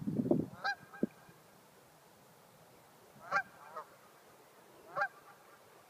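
Geese honking, four single honks spaced one to two seconds apart. A short burst of noise comes at the very start, before the first honk.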